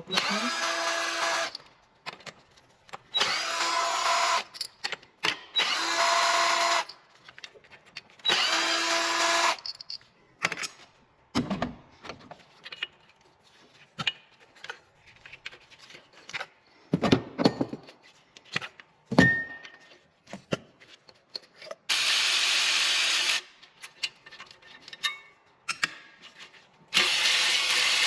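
Power drill-driver running in short bursts of a second or two, undoing bolts on an engine, with metallic clinks and knocks of parts and tools between the bursts.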